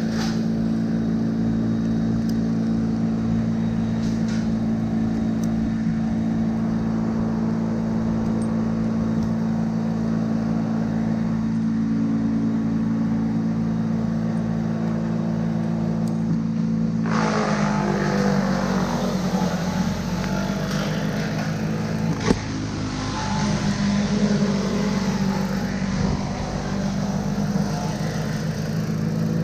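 An engine running steadily. About two-thirds of the way through, a rougher, noisier sound joins it and carries on, with one sharp crack a few seconds later.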